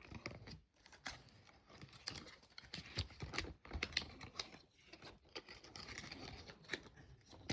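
Packaging of an Apple Watch charger being opened by hand: paper and plastic wrapping crinkling and tearing, with many irregular small clicks and rustles and a sharper knock at the very end.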